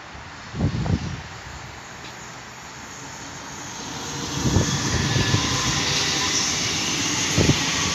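Electric multiple-unit train passing close by on the adjacent track: its running and wheel-on-rail noise swells over a couple of seconds, then holds steady and loud as the cars go by. Low buffets of wind on the microphone come about half a second in.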